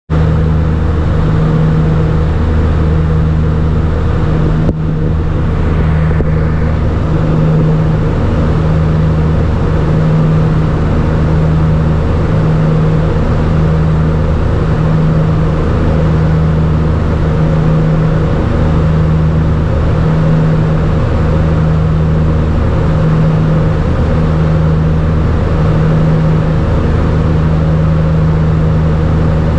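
Twin Garrett TPE331-10 turboprop engines of a Turbo Commander 690B droning steadily, heard inside the cockpit, with a slow regular throb about every two seconds: the beat of the two propellers turning at slightly different speeds. A brief click about five seconds in.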